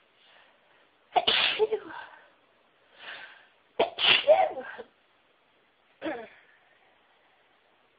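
A woman sneezing: two loud sneezes about a second and about four seconds in, the second after a softer drawn-in breath, then a shorter, quieter one about six seconds in.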